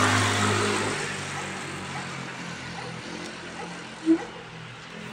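A vehicle drives by on the rain-wet street, its engine and tyre hiss loudest at first and fading out about a second in, over the steady hiss of light rain. A single short, sharp blip sounds about four seconds in.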